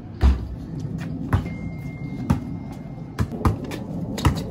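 A basketball bouncing on brick pavers: about six separate thuds, roughly one a second, the first and loudest about a quarter of a second in.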